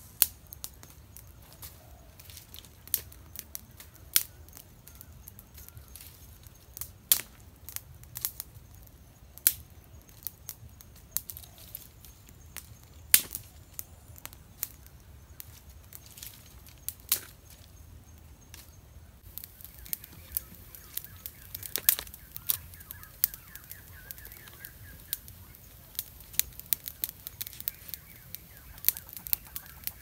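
A small twig campfire crackling, with sharp, irregular snaps and pops that come more often in the second half.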